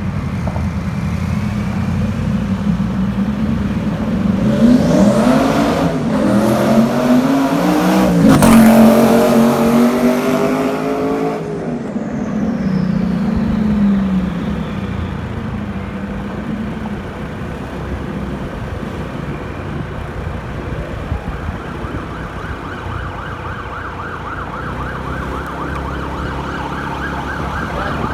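Twin-turbocharged V8 Audi R8 accelerating hard past. Its engine note climbs in pitch, is loudest about eight to nine seconds in, then drops in pitch and fades away.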